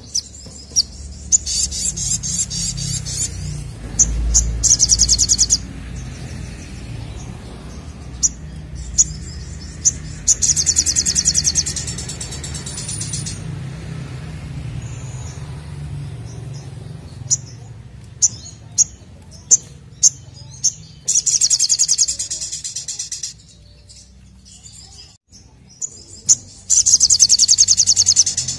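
Brown-throated sunbird (sogok ontong) singing vigorously in dense bursts of rapid, high trilling song, about five bursts of one to three seconds each, with single sharp chirps in between.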